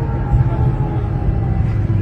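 Tatra tram running: a steady low rumble with a faint motor whine that slowly falls in pitch.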